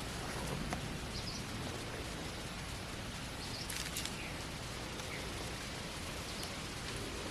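Steady outdoor hiss of background noise with a few faint, short, high bird chirps and light clicks.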